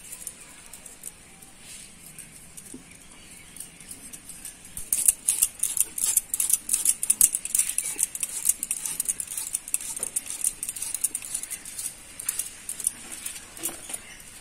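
Raw potato being sliced into thin rounds on a bonti, the upright curved blade fixed to a wooden base: a quick run of short crisp cutting clicks that starts about five seconds in and keeps going, several a second.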